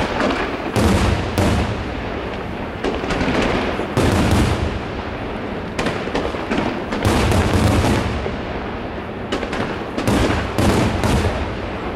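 Aerial firework shells of a professional display bursting in rapid succession: deep booms and sharp reports in about five heavy volleys, with a continuous din of further bursts between them.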